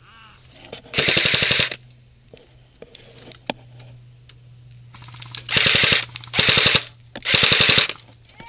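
Airsoft gun firing on full auto: four bursts of rapid, evenly spaced shots, one about a second in and three close together near the end. A faint steady low hum runs underneath.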